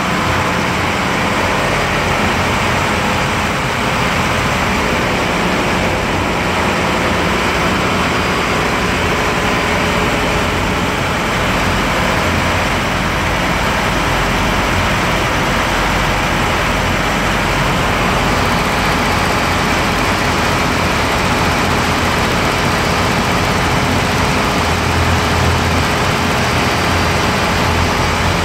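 A vessel's engines running steadily, heard inside the engine room: a loud, even drone with a deep hum underneath.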